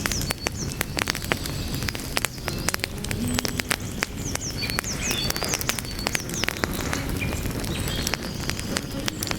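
Burning wood fire crackling, with frequent sharp irregular pops over a steady low rumble of the flames. Short high chirps come through now and then.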